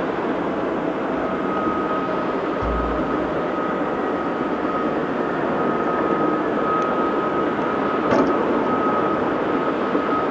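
Heavy quarry machinery running, a steady diesel engine sound with a thin steady whine over it. There is a short low thump about three seconds in and a single knock about eight seconds in.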